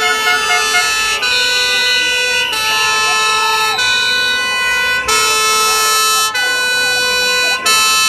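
Music of long held notes sounding together as chords, changing pitch in steps every second or so, with short breaks between them.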